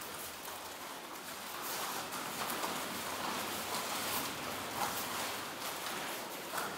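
Bare feet stepping and sliding on a training mat, with uniforms rustling, as a group of taekwondo students moves through a poomsae slowly, with soft scattered foot thuds.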